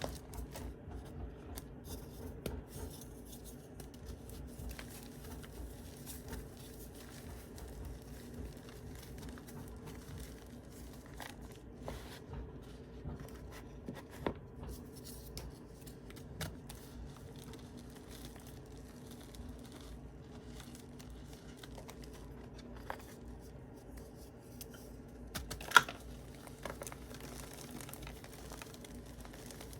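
Crayola sidewalk chalk and Belgorod sawn chalk being crumbled: continuous soft crunching and crackling with scattered sharp snaps, one much louder snap about 26 seconds in.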